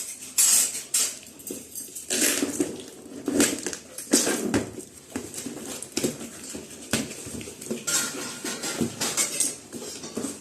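Stainless steel mixer-grinder jars being unboxed and handled: packaging rustling, with repeated knocks and clinks of the jars.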